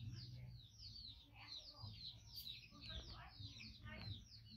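Faint, rapid chirping of small birds: many short chirps falling in pitch, repeated over and over, over a steady low hum.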